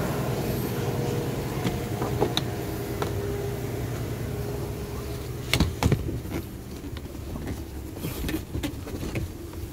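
Steady low hum of the Holden Commodore's 3.0 L V6 idling during a parts test, with a few light clicks and two sharp knocks about halfway through as trim and seat parts are handled.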